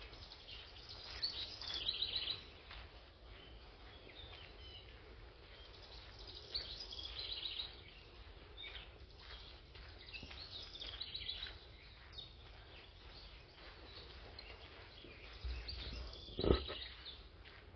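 Songbirds chirping and singing faintly in short spells over a quiet outdoor background. A brief thump near the end.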